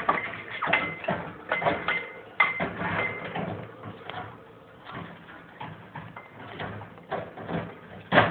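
Ringneck parrot making a run of short clicks and brief high chirps, busiest in the first three seconds, then softer, with a sharp click near the end.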